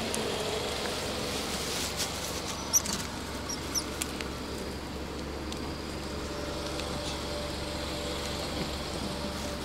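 Steady outdoor background hiss over a low hum, with a few light clicks and taps and brief faint high squeaks about three to four seconds in.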